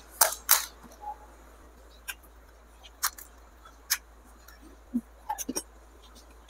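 Eating sounds of someone chewing through a plate of pasta: about a dozen short wet clicks and smacks, spaced irregularly, with a cluster of several quick ones near the end.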